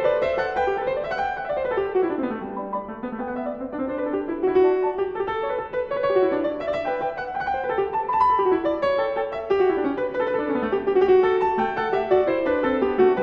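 Solo piano music, with flowing runs of notes that climb and fall without pause.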